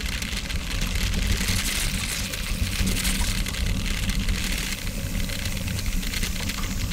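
Wind rush and buffeting on a bicycle-mounted action camera's microphone at road speed, over the steady rumble and crackle of tyres rolling on packed gravel.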